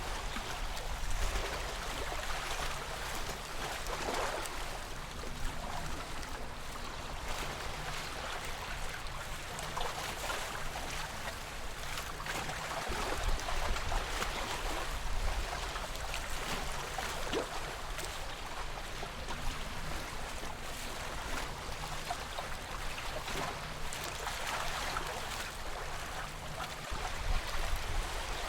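Calm lake water lapping gently: a steady wash of small, irregular splashes.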